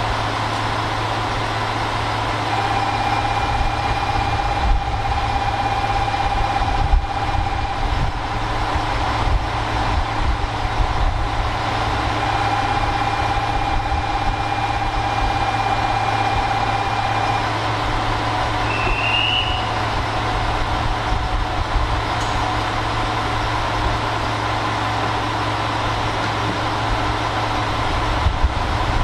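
JR Shikoku N2000 series diesel railcar idling at a standstill: a steady low engine hum. Two long steady tones of about five seconds each sound over it, a few seconds in and again about twelve seconds in, and a short chirp comes later.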